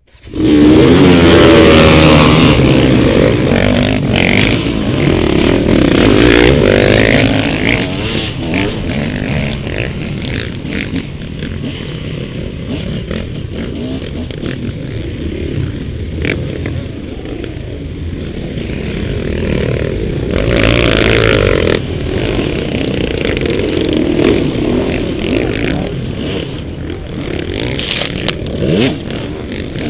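Dirt bike engines revving hard, coming in suddenly about half a second in and loudest for the first several seconds, then running on with the revs rising and falling, over scattered knocks and clatter.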